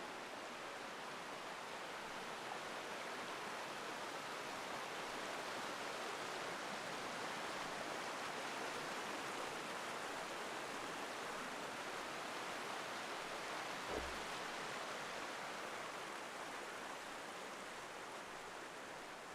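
Forest stream rushing over rocky cascades, a steady rush that swells a little and fades again. A single brief low thump comes about two-thirds of the way through.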